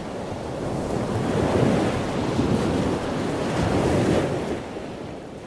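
Rushing, surf-like water noise that swells twice and eases off near the end.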